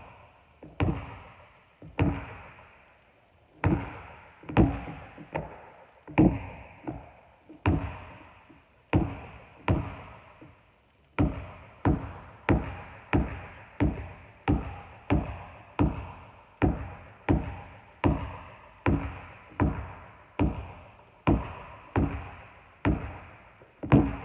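Basketball being dribbled on a hardwood gym floor, each bounce a sharp thud that rings on in the big hall. The bounces are uneven at first and pause briefly near the middle, then settle into a steady beat of about three bounces every two seconds.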